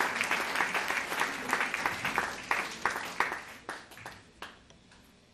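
Audience applause, dense at first, then thinning to a few scattered claps and dying away about four and a half seconds in.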